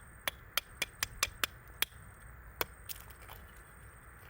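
A hard tool striking oyster shell: a quick run of sharp knocks, about four a second, that stops after about two seconds, with one more knock a little later.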